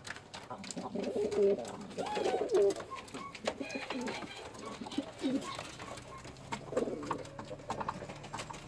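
Feather-footed domestic pigeons cooing in a loft, several rising-and-falling coos overlapping and repeating, with scattered light clicks.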